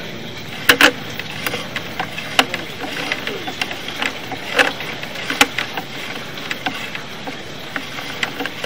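Irregular sharp clicks and knocks over a steady mechanical hum while a drain inspection camera's push cable is fed along a cast-iron drain pipe.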